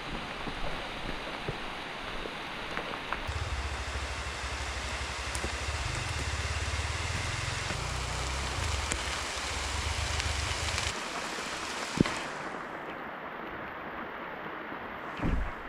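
Steady rain falling, an even hiss of drops. A low rumble comes in for several seconds in the middle, and there is a single sharp knock near the end.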